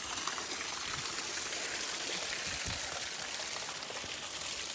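Small waterfall splashing steadily onto rocks, a constant rush of falling water.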